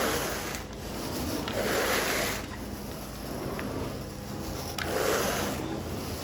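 Carpet rake dragged through the carpet pile in slow, repeated rubbing strokes, about one every two to three seconds, over a steady low machine hum.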